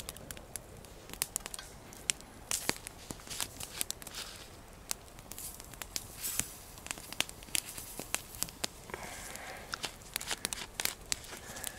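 Wood campfire crackling with frequent sharp pops, mixed with rustling of dry leaf litter and the handling of a bottle being opened.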